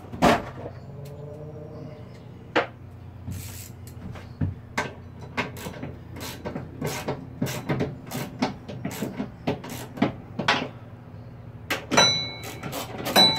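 Socket and wrench clinking and knocking against the spindle bolts and steel mower deck while a 17 mm socket is fitted to tighten the spindle: irregular clicks about once or twice a second, with a brighter ringing metal clink near the end. A steady low hum runs underneath.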